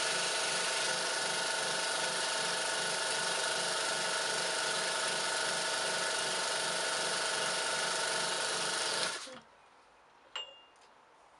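Small airbrush compressor running loudly with a steady whine, feeding air to a model Stuart No. 4 replica steam engine, with a fast rhythmic beat underneath. About nine seconds in, the sound cuts off suddenly, leaving two faint clicks.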